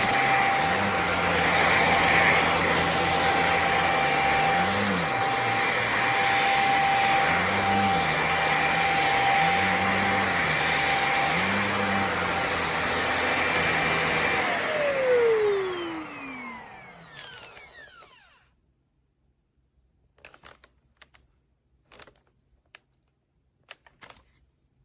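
Handheld mattress vacuum cleaner running with a steady whine, then switched off about 15 seconds in, its motor winding down in a falling tone. A few faint clicks follow near the end.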